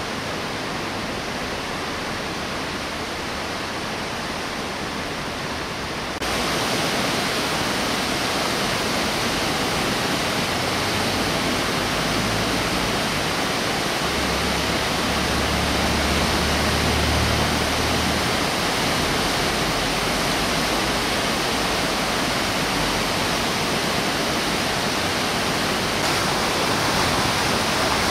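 The Dora river in flood, muddy water rushing hard and churning against a bridge pier and under a railway bridge: a steady, unbroken rush of water. It becomes louder about six seconds in.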